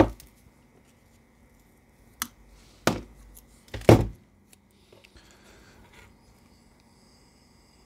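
Workbench handling sounds as double-sided tape is taken from a roll and torn off: three sharp knocks about two, three and four seconds in, the last the loudest, then a faint rustle as the tape is pressed onto a plastic battery holder.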